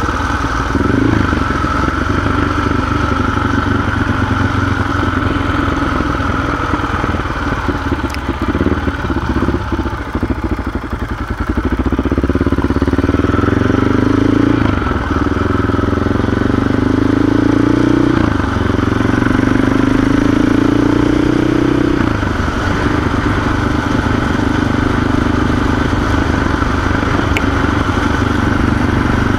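CCM 604e supermoto's single-cylinder engine running under way. It eases off briefly, then about halfway through its pitch climbs three times in a row, dropping between climbs as it pulls up through the gears, before settling to a steady cruise.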